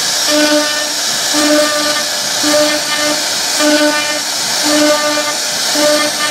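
CNC wood router carving a wooden panel: a steady high hiss from the spindle and the bit cutting wood, with a humming tone that pulses about once a second as the head makes its back-and-forth passes.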